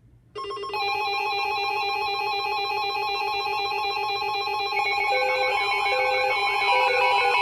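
Electronic emergency alert tone, several steady tones sounding together, starting abruptly about a third of a second in. From about five seconds in, a second tone joins it, hopping back and forth between a low and a high pitch.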